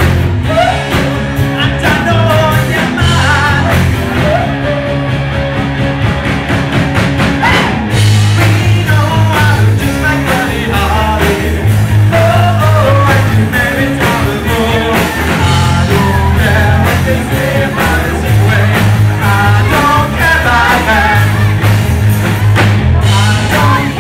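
A rock band playing live: electric guitars, bass guitar and drums with a steady beat, and a man singing, heard from among the audience.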